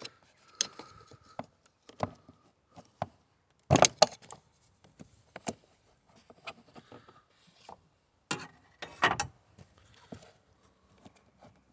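Screwdriver prying a car battery's positive terminal clamp up off its post: irregular metal clicks, scrapes and knocks, the loudest about four seconds in and again near nine seconds.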